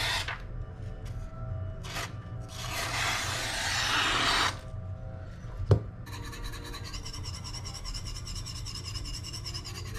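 Rubbing or scraping strokes: a short one, then a longer one lasting about two seconds. A single sharp click comes about halfway through and is the loudest sound, followed by a faint, steady high-pitched hum.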